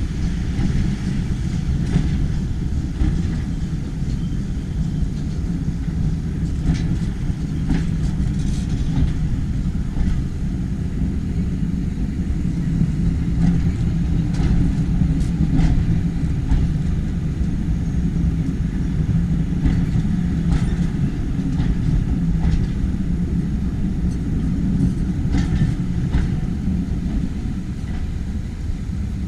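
Railway passenger coaches rolling past at low speed: a steady rumble of wheels on rails, with a few irregular clicks from the wheels and running gear.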